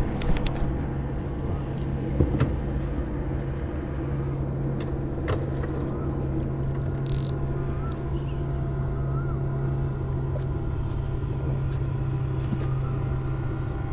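A steady low engine hum runs throughout, with a few light knocks.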